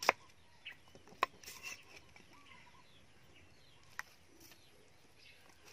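A cleaver chops through an onion onto a wooden chopping board once, sharply, right at the start, followed by a few lighter knocks of the knife on the board about a second in and one small click about four seconds in. Between these there is a low background with faint bird chirps.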